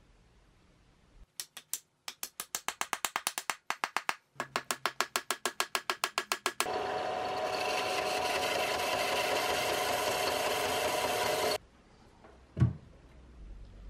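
A mallet rapidly tapping a wooden wedge down into the eye of a hatchet handle, about five even strikes a second for some five seconds. A steady whirring, hissing noise follows and cuts off suddenly. A single thump comes near the end.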